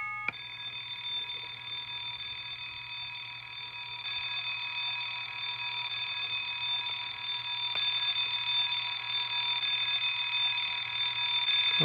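Old Timex alarm clock's electronic bell wake-up sound: a steady ringing tone from the clock's small speaker, starting just after a quick change of chime notes and growing gradually louder.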